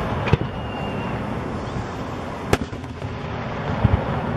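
Aerial firework shells bursting: three sharp bangs, about a third of a second in, around two and a half seconds in and near the end, over a steady background noise.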